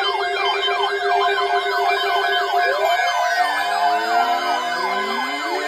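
Several weather alert radios sounding their alarms at once to signal an incoming weather alert. Fast warbling siren tones are layered with steady and beeping tones. A low steady tone cuts off about three seconds in, and slow rising siren-like wails start up.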